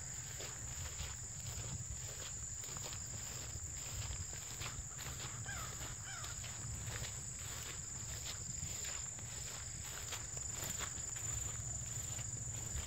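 A steady, high-pitched insect chorus in a grassy field, with the soft, repeated steps of someone walking through tall grass.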